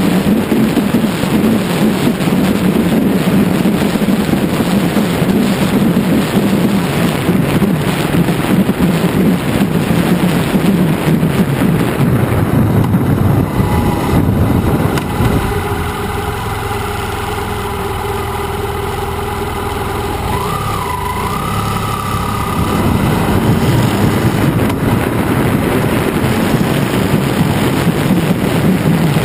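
Wind rushing over the microphone of a BMW F800GS motorcycle at road speed, with the bike's parallel-twin engine running underneath. About halfway through the wind eases and the engine's steady note comes through clearly for several seconds, with a brief rise and fall in pitch, before the wind rises again near the end.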